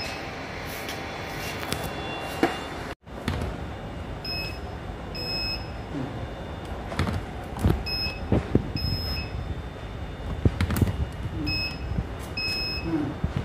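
Beeping from a hand-held induction cap sealer used to seal engine oil bottle caps: pairs of short, high beeps about a second apart, repeating about every three and a half seconds. Steady machine noise and occasional knocks sound underneath.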